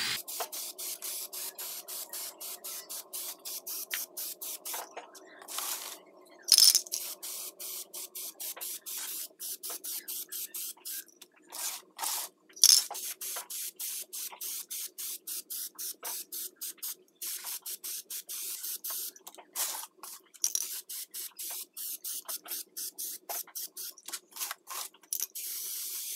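Aerosol can of Plasti Dip rubber coating spraying in many short bursts of hiss, a few per second, with two louder bursts about six and twelve seconds in.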